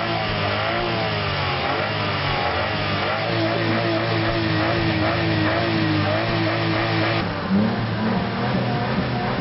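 Daihatsu Cuore's small petrol engine revved high and held near 6,500 rpm, heard from inside the car. About seven seconds in, the sound switches to behind the car at the exhaust, where the engine is blipped again.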